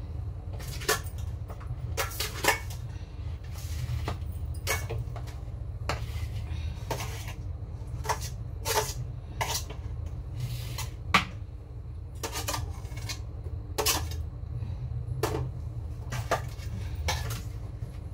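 Steel dishes and utensils clinking and knocking as they are put away on a kitchen counter: sharp, irregular clinks about once a second over a steady low hum.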